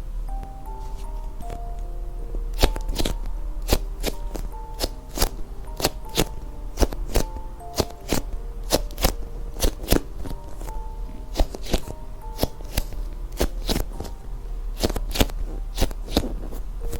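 Music-box background music playing a simple melody, with many irregular sharp clicks and taps from objects being handled.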